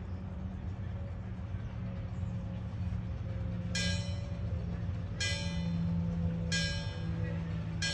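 Miniature steam locomotive's bell ringing in evenly spaced strikes, four of them starting about four seconds in, each fading before the next, over the low steady rumble of the approaching train.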